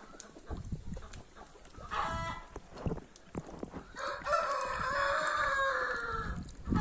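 A rooster crowing, one long call of about two seconds starting about four seconds in and falling slightly in pitch at the end. A shorter call comes before it, about two seconds in.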